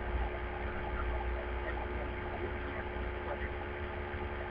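Steady low hum with a faint hiss and a thin steady tone on a telephone conference-call line, between speakers.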